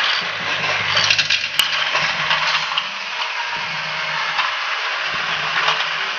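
Motorised toy Thomas the Tank Engine running on plastic track: its small motor and gears whirr steadily as it rolls down a plastic ramp, with a run of plastic clicks and clinks about a second in.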